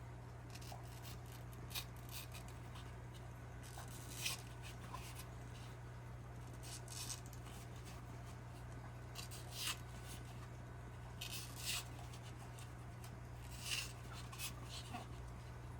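Razor blade cutting excess mesh around the rim of a 3D-printed plastic ring: short, faint, scratchy cuts coming irregularly every second or two. A steady low hum runs underneath.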